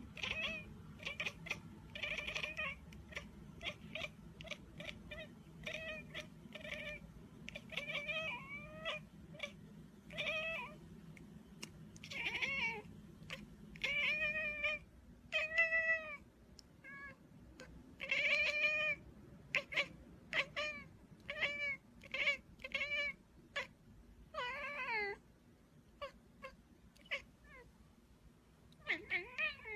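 Long-haired black cat giving a long run of short meows and chirps, dozens of brief calls one after another, some gliding up and down in pitch.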